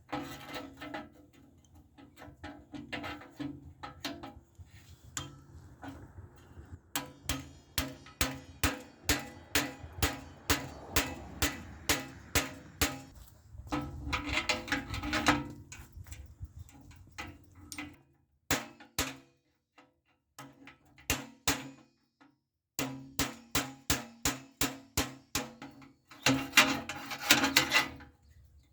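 Repeated hammer blows driving a steering-neck bushing into a mini-bike frame tube, each strike sharp with a short metallic ring. The blows come in runs of about two a second, with a stretch of slower, single taps in the middle.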